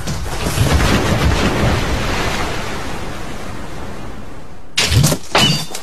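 Cartoon sound effects: a steady low rumbling noise, then two heavy booms about half a second apart near the end.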